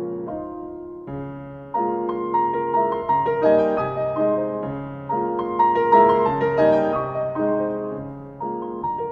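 Grand piano played solo, a melodic passage: a held chord dies away, then about two seconds in a new phrase enters and swells to its loudest near the middle before easing off.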